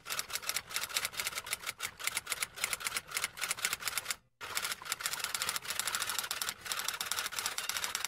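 Sound effect of rapid, irregular clicking like typing on keys, in two runs broken by a short gap about four seconds in.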